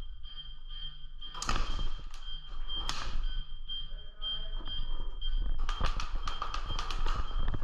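A high electronic tone beeping on and off throughout, with two sharp airsoft shots in the first half and a rapid string of airsoft shots near the end.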